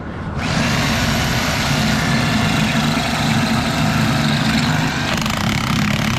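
Electric hammer drill boring into a concrete floor, a steady loud rattling whir that starts abruptly about half a second in and keeps going.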